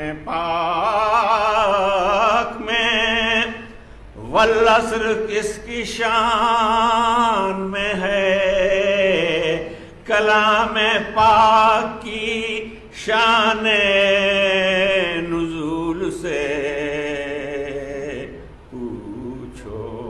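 A man chanting soz, a Shia Muharram elegy, solo and unaccompanied. He sings in long held phrases with short breaks for breath, his voice wavering on the sustained notes.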